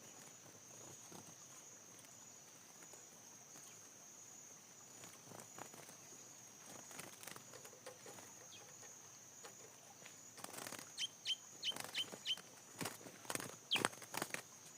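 A steady high insect drone, then, in the second half, a run of sharp knocks and rustles mixed with a few short, high bird chirps.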